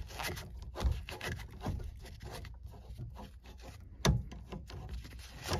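Small tubing cutter being turned around a copper refrigerant line: the cutting wheel rubs and scrapes as it scores the copper, with light irregular clicks and a sharper knock about four seconds in.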